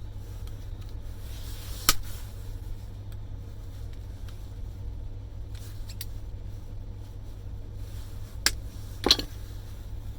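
A few sharp clicks and snaps as small metal parts are pried and popped out of a miniature circuit breaker. The loudest clicks come about two seconds in and near the end, over a steady low hum.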